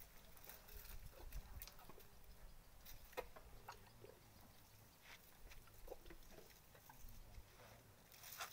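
Faint, scattered clicks and rustles of an African elephant feeding on leafy branches, with one sharper click about three seconds in.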